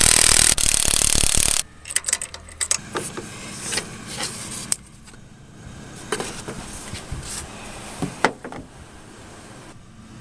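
Cordless power tool running a socket on the alternator's mounting bolt for about a second and a half, with a brief dip partway, then stopping abruptly. After that come scattered light metal clinks and knocks as the alternator drive belt and tools are handled.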